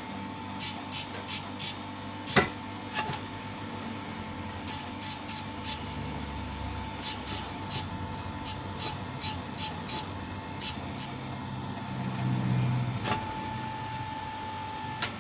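Hydraulic press being worked by its lever: runs of short, light clicks at about two to three a second over a steady hum, with one louder knock about two seconds in. The press is forcing a turned pipe sleeve into a water pump's worn bearing housing.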